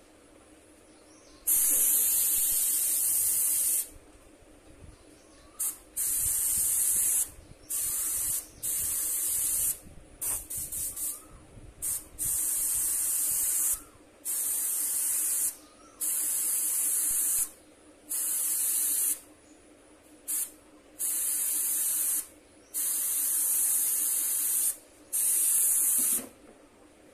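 Airbrush spraying paint in a string of hissing bursts, each about one to two seconds long, as the trigger is pressed and released, with a few quick flutters of the trigger midway. A faint steady hum runs underneath.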